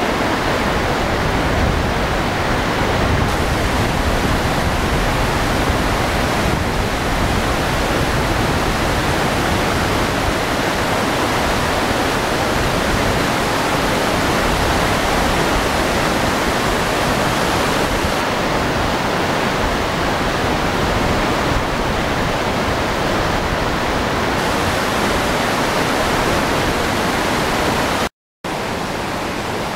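Steady rush of a waterfall and its cascade tumbling over rocks. The sound cuts out for a moment near the end.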